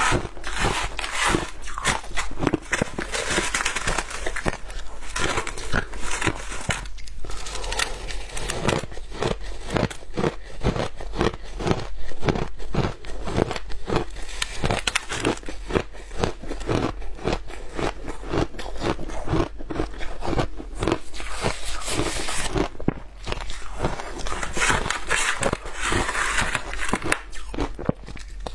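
Shaved ice being crunched and chewed, a dense, continuous run of crisp crunches and crackles. Loose ice grains rustle as they are scooped from the tub.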